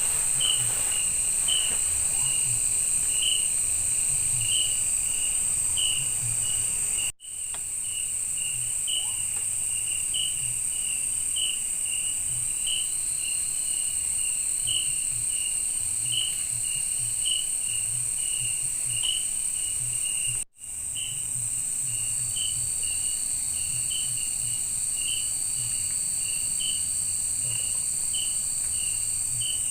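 Night-time forest insect chorus: a steady high-pitched trill with a regular chirping about twice a second underneath. The sound cuts out briefly twice, about seven and twenty seconds in.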